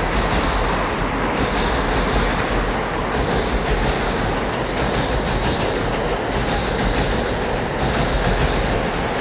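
A JR Jōban Line train running past close by: a steady rumble of wheels on rails, with faint high-pitched wheel squeal in the middle.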